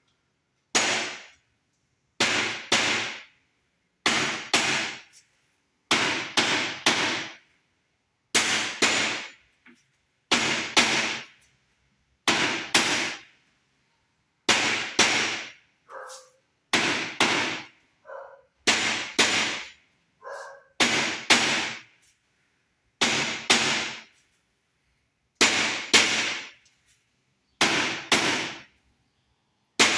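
Rubber mallet striking a coffee table's frame to seat it onto the tabs of the leg uprights, in quick groups of two or three blows about every two seconds.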